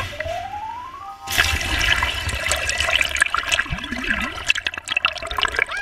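Water sloshing and bubbling around a camera held at the waterline, starting suddenly about a second in with many crackles and pops. It follows a brief rising tone.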